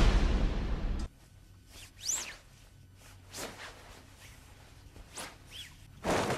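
Anime sound effects: a loud rushing blast that cuts off abruptly about a second in, followed by a series of short whooshes and swishes, one of them carrying a brief rising-and-falling whistle. A louder swish comes near the end.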